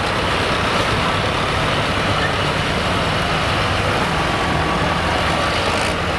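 Tractor engines running steadily as farm tractors drive past close by.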